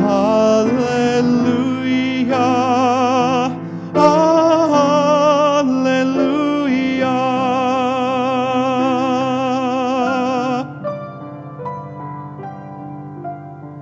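A solo voice singing long held notes with strong vibrato over grand piano accompaniment. The singing stops about ten and a half seconds in and the piano carries on alone.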